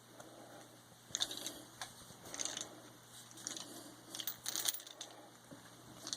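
A metal crimp fitting being worked onto the end of a 3/8-inch two-wire hydraulic hose by hand: scattered scrapes, rustles and small metallic clicks, loudest about a second in, midway and near the end.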